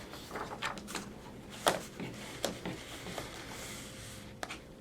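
Picture-book pages being handled: a few short, soft rustles and taps, the loudest a little under two seconds in.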